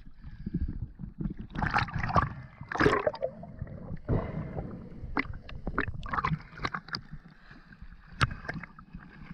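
Sea water splashing and sloshing around a camera at the surface as it dips under and comes back out. Irregular splashes are loudest in the first few seconds, then short sharp clicks and drips.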